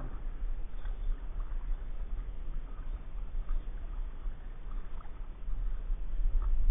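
Kayak paddle strokes in the water: faint splashes and drips about every second or so, over a steady low rumble.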